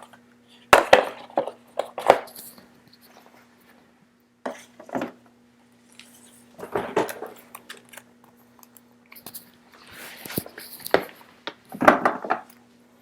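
Trading card box and its packaging being opened and handled: irregular light knocks, clicks and rustles of cardboard and wrapper, in clusters every second or two, over a faint steady hum.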